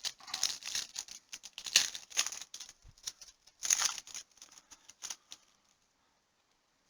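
Cellophane wrapper of a trading-card pack crinkling as it is torn open, in quick rustling bursts that stop about five seconds in.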